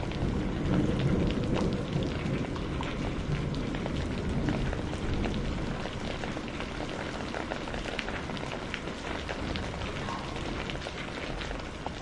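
Steady rain falling, with individual drops pattering on a surface, and a low rumble of thunder in the first couple of seconds that dies away.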